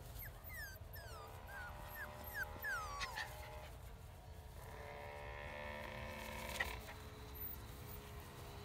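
Miniature poodle puppies yipping and whining in play: a quick run of short, high, falling yelps in the first three seconds, then longer, steadier whines until about seven seconds in.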